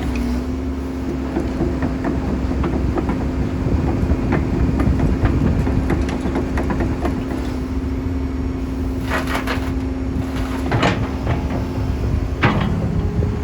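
Kobelco SK200SR hydraulic excavator working: its diesel engine runs steadily with a constant hum, under scattered small knocks, and a few louder metallic clanks come in the second half.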